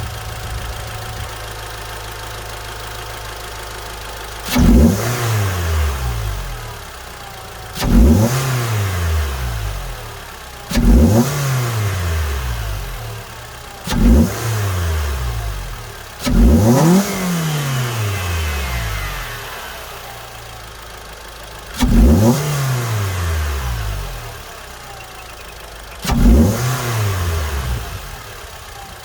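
Mitsubishi Lancer four-cylinder engine, fitted with an aFe short ram cold-air intake, idling steadily and then free-revved seven times. Each blip jumps quickly and falls back to idle over a second or two. This is a stationary rev test after the intake swap, with the idle settled once the MAP sensor was plugged in.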